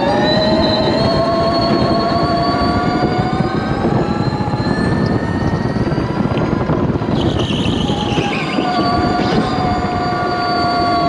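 Electric go-kart's motor whining, its pitch climbing gradually as the kart accelerates, over a heavy rumble. About seven seconds in the whine drops away while a brief higher squeal falls in pitch, then the whine comes back steady.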